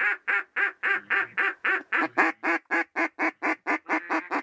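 Mallard duck call blown by a hunter: a long, even run of loud quacks, about four a second, with no pause.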